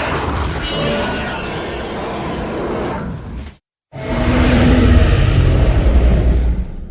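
Two Zilla Junior monster roar sound effects in a row. The first fades out a little over three seconds in; after a brief silence comes a second, louder roar with a low pitched growl in it, which trails off near the end.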